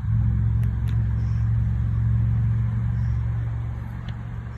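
Steady low engine hum, fading away from about three seconds in.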